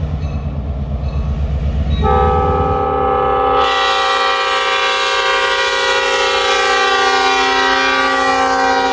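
Diesel locomotive, an EMD GP38, approaching with a low pulsing engine rumble; about two seconds in its air horn comes on as one long steady chord that holds to the end, and a rush of passing train noise joins it a second or so later.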